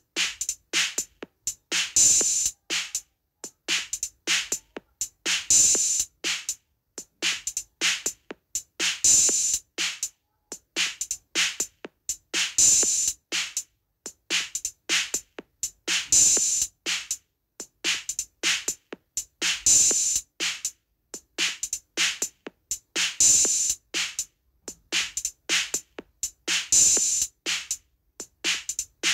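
Rhythmic davul drumming in a halay dance beat: dry, sharp strokes with a bright top, the same pattern repeating about every three and a half seconds like a loop.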